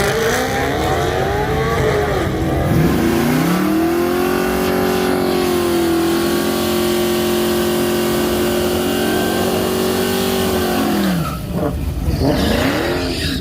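Car engine at a race track revving in a few quick rises and falls, then climbing to high revs and holding them steadily for about seven seconds before dropping back, with one more short rev near the end.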